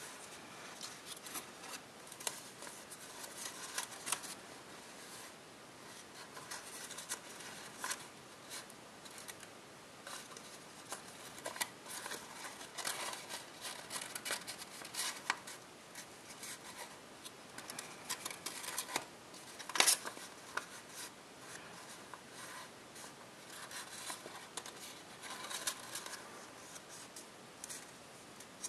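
Copper tissue foil paper crinkling and rustling as it is folded and creased by hand: irregular crisp crackles, with one sharper crackle about two-thirds of the way through.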